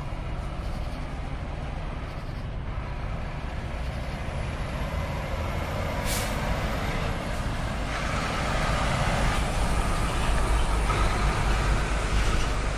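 Diesel semi-truck hauling a container trailer approaching and passing close by, its engine rumble growing louder over the second half. A brief air-brake hiss comes about six seconds in.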